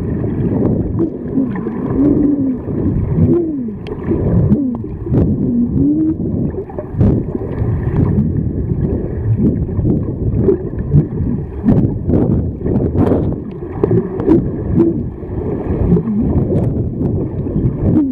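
Underwater sound from a camera beneath the surface: a continuous muffled rumble of water and bubbles, with short rising-and-falling tones and scattered clicks.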